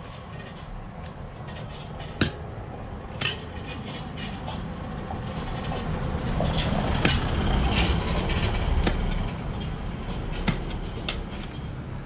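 Steel tire lever clinking and scraping against a spoked dirt-bike wheel rim as the tire bead is pried over it, with several sharp metallic clinks. A low rumble swells in the middle.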